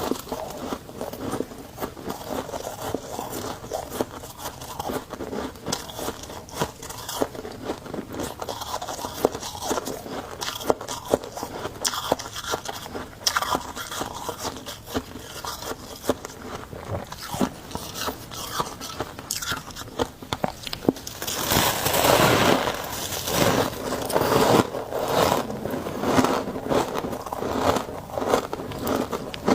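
Close-up crunching and chewing of chunks of humidifier freezer frost: dense, irregular crackling bites, louder and denser for the last several seconds.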